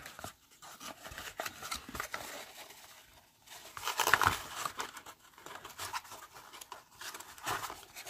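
Small cardboard knife box being closed by hand: the flaps folded and tucked in, with irregular rustling and scraping of the card, loudest about four seconds in and again briefly near the end.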